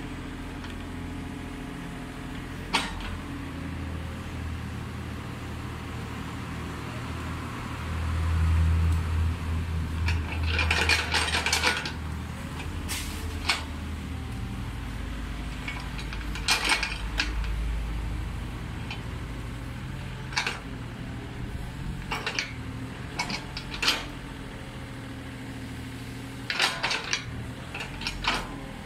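Komatsu PC30 mini excavator's diesel engine running steadily, getting louder for a few seconds about eight seconds in as it works harder. Scattered sharp clanks and knocks come from the machine as it digs, with a quick run of them around ten to twelve seconds in.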